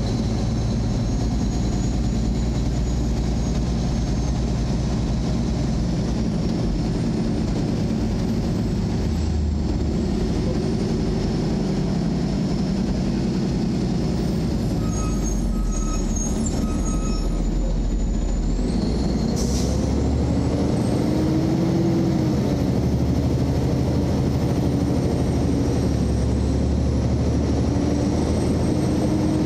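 Car driving slowly: steady low engine and road rumble, with the engine pitch rising and then falling about two-thirds of the way through.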